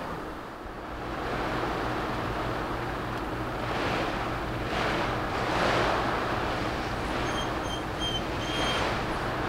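Tropical-storm wind and heavy rain rushing steadily, swelling in gusts. A few faint, short, high peeps come near the end.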